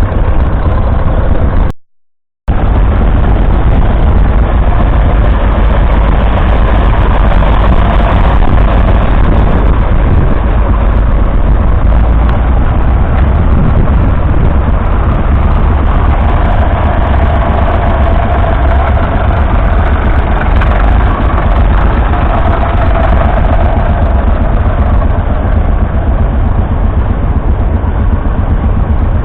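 Vintage tractor engine running steadily, with a brief cut to silence about two seconds in.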